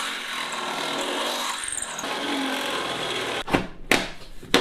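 Cordless drill boring out a bolt hole in a snowmobile's sheet-metal rear deck, enlarging it to line up with a seat-frame bolt. The drilling runs steadily, stops about three and a half seconds in, and is followed by three sharp knocks.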